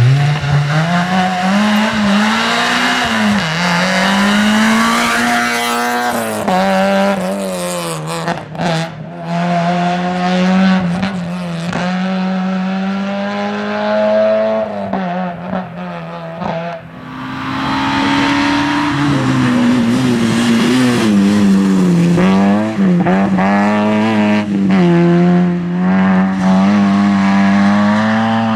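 Rally car engines revving hard on a stage, the pitch rising and falling as they accelerate, lift and change gear, with a brief drop in sound about two-thirds of the way through.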